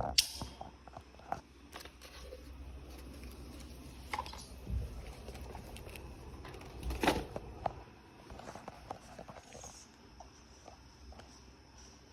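Light handling noises: scattered clicks, taps and rustles, a louder knock near the start and another about seven seconds in, over a low steady hum.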